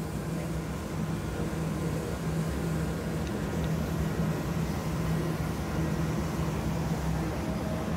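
Steady mechanical drone of jack-up rig machinery with a low hum, over the rush of water jetting from the hull and splashing onto the sea.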